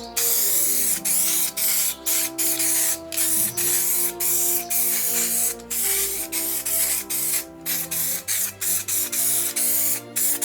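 Aerosol spray paint can hissing in repeated bursts of about a second each, with brief breaks between them, over background music.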